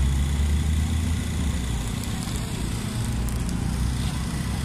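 Steady low rumble of city street traffic, with a few faint ticks about halfway through.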